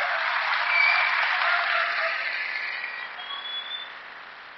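Audience applauding, strongest about a second in and dying away over the last couple of seconds.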